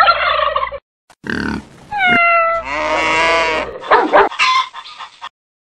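A quick montage of about five short animal and bird call sound effects, one after another, each cut off abruptly.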